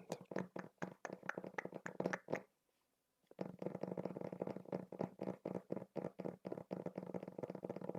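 Rapid, irregular tapping on a book, about six taps a second, with a short break about two and a half seconds in before the tapping resumes.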